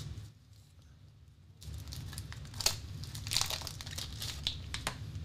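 The wrapper of a beef meat stick crinkling and tearing as it is worked open, starting about a second and a half in; the wrapper is hard to open.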